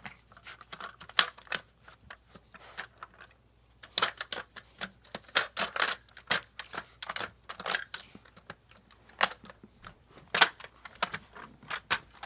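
A dog working at a plastic puzzle treat toy, the plastic pieces clicking and clattering irregularly, sparse at first and busier from about four seconds in.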